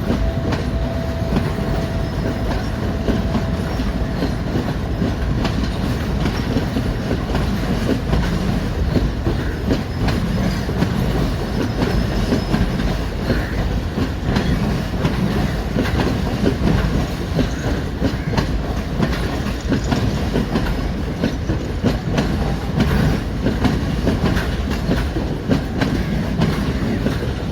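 Diesel-hauled train running on the rails: a steady low rumble with wheels clicking over rail joints. The tail of a horn note fades out in the first few seconds.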